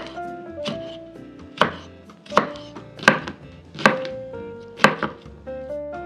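Kitchen knife slicing tomato and cucumber on a wooden chopping board: a regular series of sharp knocks of the blade meeting the board, a little under a second apart.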